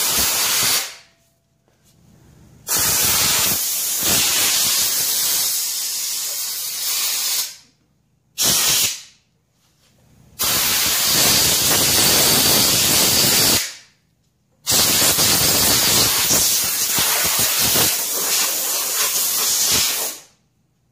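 Compressed air hissing from a shop air-hose blow gun, blowing dirt and debris off a small generator engine. It comes in five blasts, a short one at the start and then several long ones of a few seconds each, with brief pauses between.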